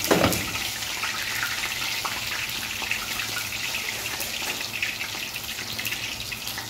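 Hot frying oil with hot pepper and garlic in it, sizzling with a steady hiss and fine crackle. A single knock right at the start.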